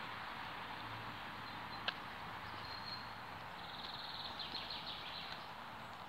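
Small bird singing a fast trill of high chirps in the second half, over a steady outdoor hiss. A single sharp click sounds about two seconds in.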